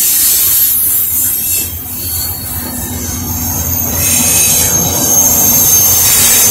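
Slow-moving coal train of steel hopper cars rolling past, its wheels squealing high and steadily on the rails. From about four seconds in, the low hum of a Union Pacific diesel locomotive's engine grows louder as it passes close by.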